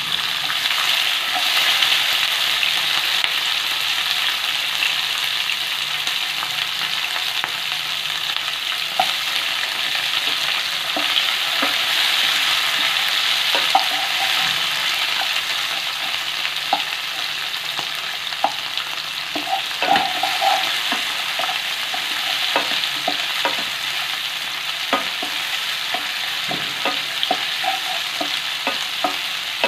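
Yellow and red bell pepper strips, garlic and curry leaves sizzling in coconut oil in a nonstick pan. A wooden spatula stirs them, with short knocks against the pan from about nine seconds in.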